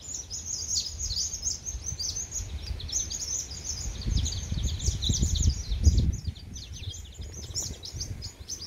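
Many small birds chirping and twittering at once: a dense, unbroken run of short, high, falling notes. A low rumble on the microphone swells about four to six seconds in.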